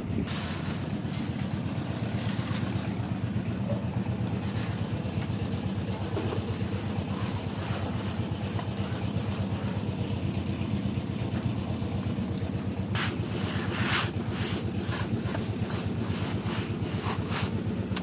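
Engine of concrete-pouring construction equipment running steadily. About thirteen seconds in, a quick run of short, sharp noises cuts in over it.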